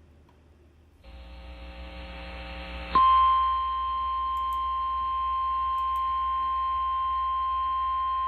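A hiss with a low hum builds for about two seconds. Then the NOAA Weather Radio warning alarm, a single steady high-pitched 1050 Hz tone, starts loud and holds, announcing a severe weather warning.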